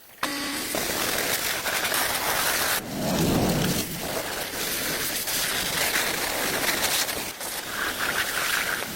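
Steady rain falling, an even hiss, with a low rumble about three seconds in.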